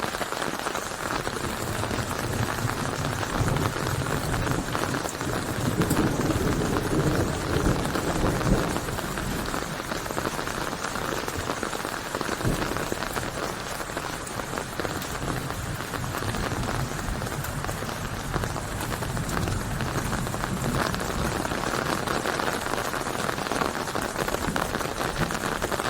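Steady, heavy rain falling and pattering on a surface, with a low rumble that swells and fades a few seconds in.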